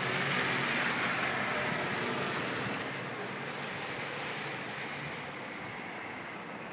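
Wind blowing as a steady rushing hiss, strongest at the start and easing off gradually.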